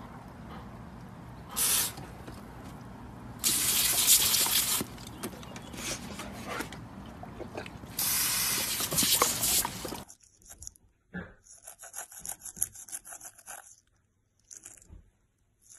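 Water spraying in loud bursts, three of them over about ten seconds, onto a wet deck. Then a toothbrush scrubbing a dog's teeth in quick, repeated scratchy strokes.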